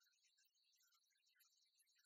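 Near silence, with only a very faint, steady high-pitched hiss.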